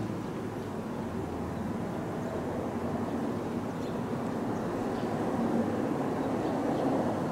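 Steady low rumble of distant vehicles, swelling slightly louder near the end.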